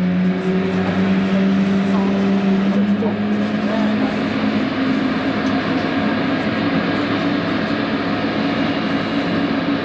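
Steady drone of jet aircraft on the apron: a low hum with several held tones over a broad rushing noise, the tones shifting slightly about three seconds in.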